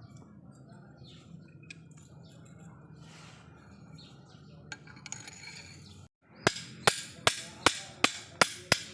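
Faint workshop background with a few small chirps and clicks. Then, about six seconds in, a hammer strikes metal in a quick even series of sharp ringing blows, two to three a second.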